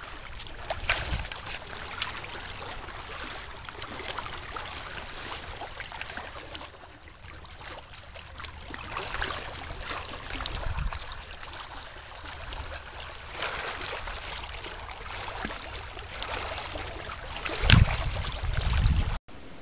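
Small lake waves lapping and trickling among flat shoreline rocks. Wind gusts on the microphone add a low rumble, loudest near the end.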